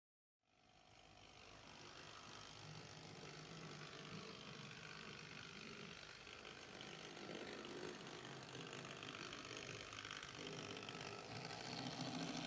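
Rivarossi 1662 model electric shunting locomotive with a Trix motor running along the track with its freight wagons: a steady motor hum and the rumble of wheels on rail. It fades in just after the start and grows louder as the train comes close.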